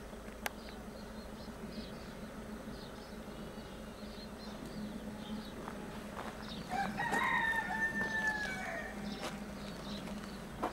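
A rooster crowing once, a drawn-out call of about two seconds a little past the middle, over faint repeated high chirping.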